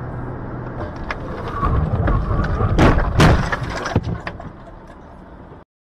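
Dashcam recording of a car crash: road noise, then a collision with a heavy rumble and a run of cracks and bangs, the two loudest close together about three seconds in. Rattling follows, and the sound cuts off suddenly near the end.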